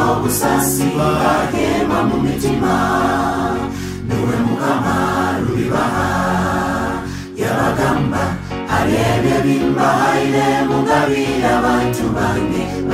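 Mixed choir of men and women singing a gospel song, with a brief break about seven seconds in.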